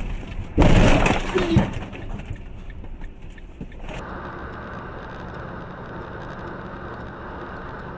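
A loud sudden bang just over half a second in and a smaller knock about a second later, typical of a vehicle impact. From about four seconds in there is steady, even vehicle running and road noise.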